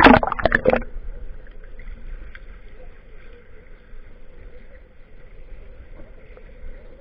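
Water splashing for about the first second as the camera is plunged under the surface, then a steady, muffled underwater sound picked up through the submerged camera.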